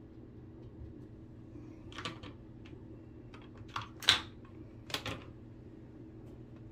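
A few short, sharp clicks and taps, the loudest a little after four seconds in, over a low steady hum.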